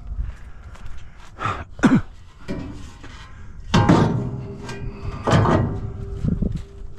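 A steel ladder-style loading ramp knocking and scraping against a truck's bed as it is handled: a series of metal clanks, the loudest about two, four and five and a half seconds in.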